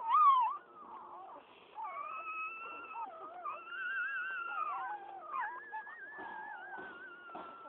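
Newborn pit bull puppies crying: high, thin whines that waver and glide in pitch almost without a break, sometimes overlapping, with a brief louder squeal right at the start.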